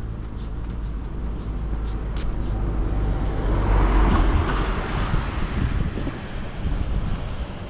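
A vehicle passing by: its noise swells to a peak about four seconds in, then fades, over a steady low rumble.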